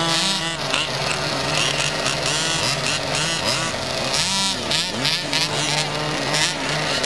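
Several 1/5-scale RC cars' small two-stroke petrol engines running together, idling steadily while their throttles are blipped again and again, each blip a quick rise and fall in pitch.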